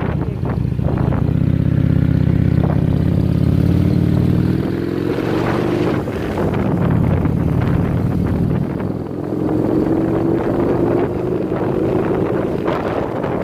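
Motorcycle engine running under way, its pitch climbing twice as the bike accelerates.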